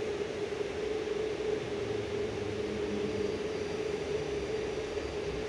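Steady hum inside an 81-725.1 "Baltiets" metro car standing at a station platform: the car's onboard equipment and ventilation run with one constant mid-pitched tone over an even hiss.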